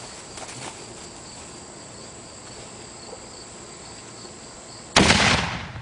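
A toy golf-ball cannon fires once about five seconds in: a single sudden, loud boom that dies away over about a second.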